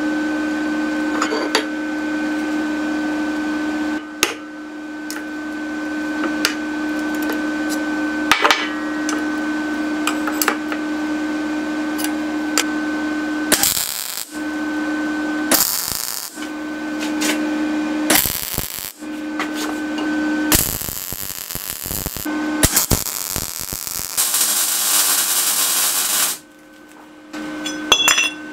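Steady electrical hum, then a series of MIG welding bursts on steel clamp parts, each crackling for about half a second to two seconds, with the longest run of a few seconds near the end.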